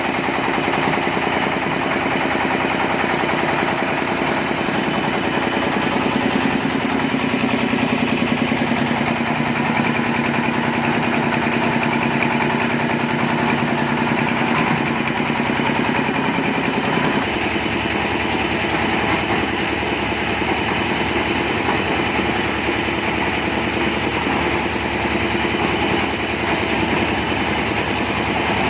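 Heavy-duty concrete mixer machine running steadily, its engine going at an even idle with a fast, continuous pulse. The tone changes slightly about two-thirds of the way through.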